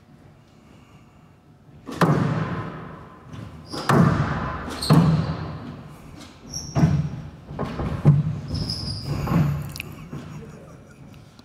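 Squash ball being struck by rackets and smacking off the court walls: about six loud, echoing hits roughly a second or two apart, starting about two seconds in, with short high squeaks of shoes on the wooden court floor between them.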